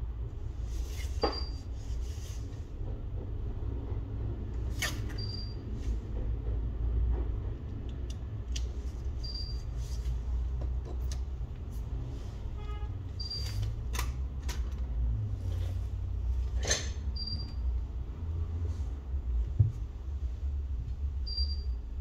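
Light clicks and taps of hands handling a phone's parts and repair tools on a workbench mat, over a steady low hum. A short high beep repeats about every four seconds.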